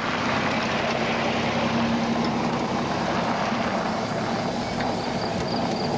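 A car driving at low speed: steady engine hum and road noise.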